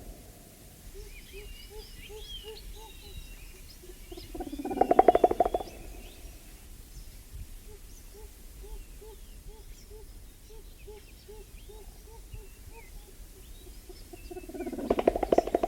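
Mountain gorilla sounds: two loud bursts of rapid low pulses, one about five seconds in and one near the end. Between them runs a soft, evenly repeated short call about three to four times a second, with scattered high bird-like chirps.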